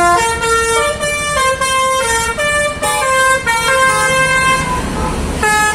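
Telolet basuri multi-tone bus horn playing a fast melody, one note after another at changing pitches. Near the end it breaks off briefly, then short toots start again.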